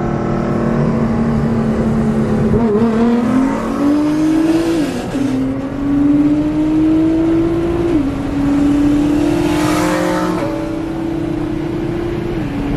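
Nissan GT-R R35's twin-turbo V6 heard from inside the cabin, holding a steady pitch for a couple of seconds, then accelerating hard from a roll. The engine note climbs and drops four times with quick upshifts.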